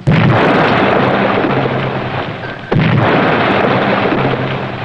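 Two depth charges exploding, one at the start and one a little under three seconds in. Each is a sudden blast that trails off into a long rumble.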